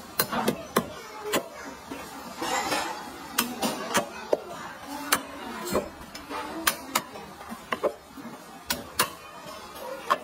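Kitchen knife striking a cutting board in irregular sharp knocks, one or two a second, as meat is sliced.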